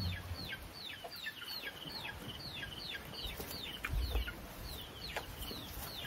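Chicks peeping: a steady run of short, high peeps, each falling in pitch, about three a second.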